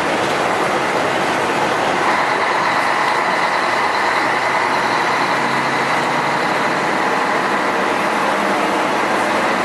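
Scania F-113 bus's diesel engine running steadily while the bus drives, mixed with road noise. A low drone comes in for a couple of seconds around the middle.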